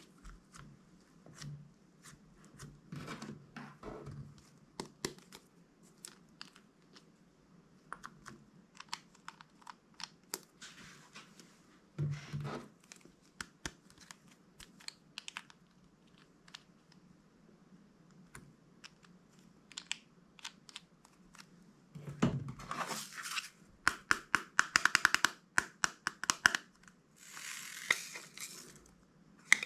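Hands working clear slime, with many sharp sticky clicks and small pops, a few soft squelching thuds, and busier crackling in the last several seconds.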